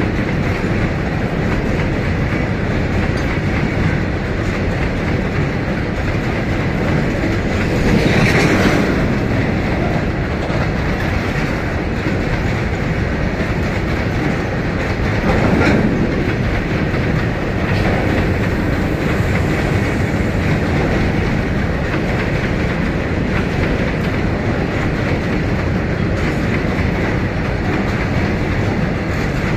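Covered goods wagons of a long freight train rolling past close by, a steady rumble with the clickety-clack of wheels over rail joints. It swells briefly louder about eight seconds in and again around fifteen seconds.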